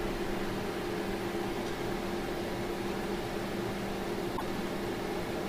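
Steady machine hum over an even hiss, holding a few constant low pitches, with one faint click about four and a half seconds in.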